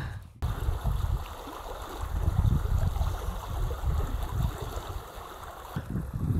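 Gusty wind buffeting the microphone over the steady flow of a small creek, with a brief drop-out right at the start.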